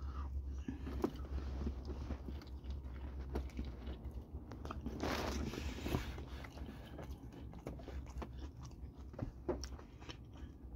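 A person chewing and biting into a steak taco close to the microphone, with small crunches and wet clicks. A louder hiss comes about five seconds in and lasts about a second.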